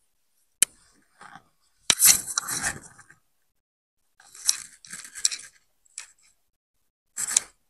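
Hijab fabric rustling and brushing against a clip-on microphone as the scarf is wrapped and adjusted: several short scratchy bursts, with a couple of sharp clicks early on and the loudest rustle about two seconds in.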